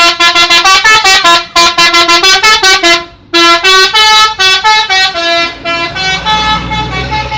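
Telolet musical bus horn playing a fast tune of short, rapidly changing notes in three phrases, the last one trailing off quieter. A low rumble rises near the end.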